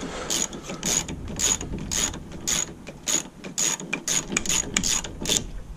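Hand socket ratchet clicking in quick back-and-forth strokes, about twice a second, as it backs off a nut. It stops shortly before the end.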